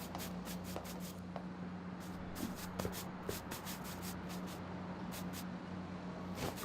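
Quick, repeated scratchy rubbing strokes, several a second in short runs, over a steady low hum.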